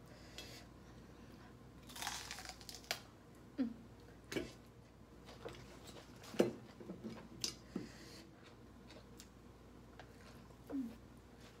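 A person eating at close range: chewing and mouth smacks, with scattered short clicks and crunches, the loudest about six seconds in. A crisp lettuce leaf rustles as it is picked up about halfway through.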